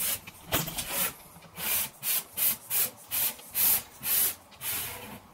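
Rhythmic scraping strokes, about two a second, of a white plastic joining strip rubbing along the edge of a fibreboard wardrobe back panel as it is worked into place.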